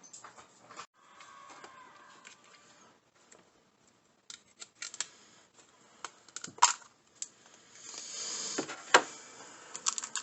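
A small cardboard blind box and its plastic packaging being handled and opened by hand: scattered sharp clicks and taps, and a burst of rustling and tearing about eight seconds in.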